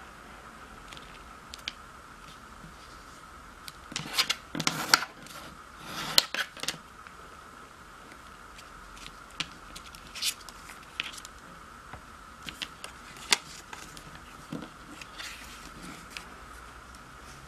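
A square of origami paper being handled and creased by hand: crinkling and rustling, loudest in two short spells around four and six seconds in, then scattered light crackles and taps. A faint steady high hum runs underneath.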